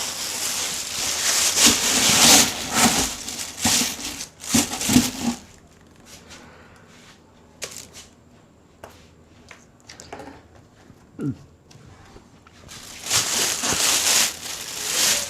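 Packaging rustling and crinkling as a speaker is handled and unpacked from its box, with knocks of handling. It quietens about five seconds in, leaving only a few soft clicks, and the rustling picks up again near the end.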